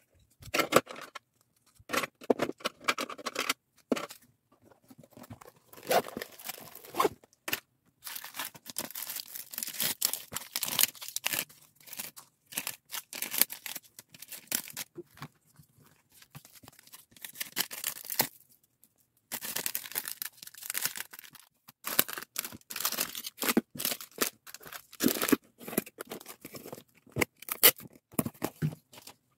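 Plastic packaging bags and bubble wrap crinkling and rustling in the hands, with sharp tearing sounds and small taps and clicks in irregular bursts. Near the end, packing tape pulled from a handheld tape dispenser over a cardboard box.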